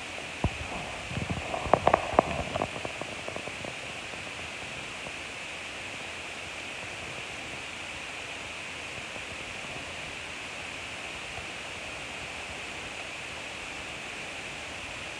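Meat and shrimp skewers sizzling on a grill, a steady hiss. In the first few seconds a flurry of sharp clicks and knocks, loudest about two seconds in, as the skewers are handled.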